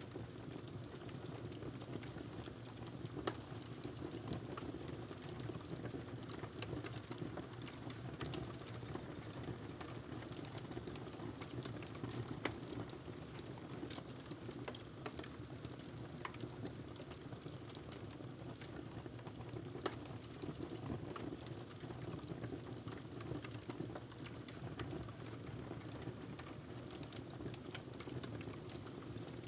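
Wood fire crackling in a fireplace: scattered sharp pops and snaps over a steady low rumble.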